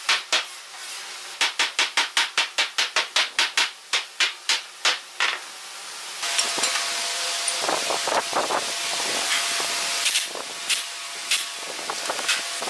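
Hammer rapidly driving nails into a wooden frame, quick sharp strikes about four to five a second that slow and stop about five seconds in. Then a steady hiss with a few sharp clicks.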